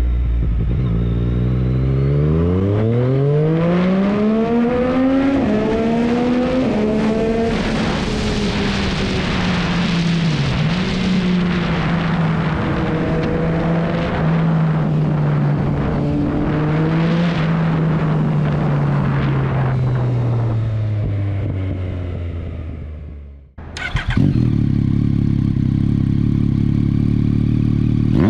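Yamaha MT-09's inline three-cylinder engine through an aftermarket carbon silencer, accelerating hard through the gears with its pitch climbing and dropping back at each upshift, then cruising steadily and slowing down. It cuts off abruptly about 23 seconds in, and the same bike is then heard idling steadily.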